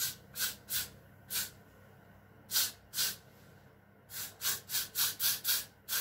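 Aerosol can of got2b Glued holding spray giving about a dozen short, sharp hisses of spray onto the edge of a lace frontal wig. The bursts are spaced out at first and come quickly, about three a second, over the last two seconds.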